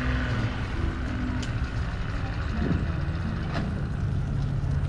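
Steady low engine drone of a running motor.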